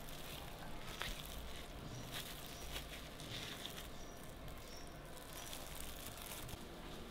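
Pot of chicken broth heating toward a boil on the stove: a faint steady hiss with light, irregular ticking of small bubbles.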